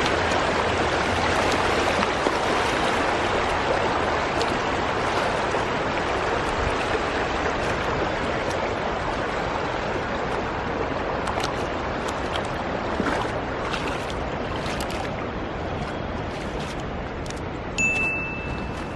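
Fast-flowing river water rushing steadily, easing a little in level over time. A brief high steady tone sounds near the end.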